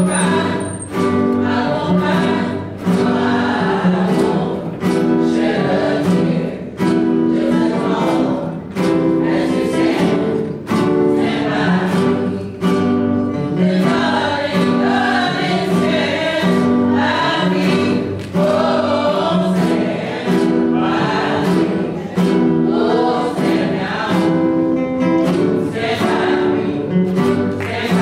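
A small group of voices singing together in harmony, accompanied by several acoustic guitars strummed on a steady beat.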